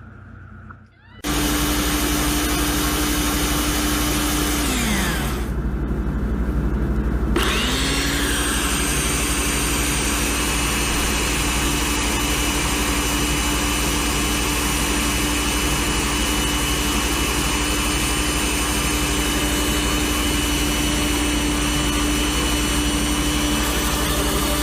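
A household appliance's electric motor running with a steady whine. About four and a half seconds in it is switched off and its pitch falls away as it winds down; about seven seconds in it is switched on again, rises back to speed and runs on steadily.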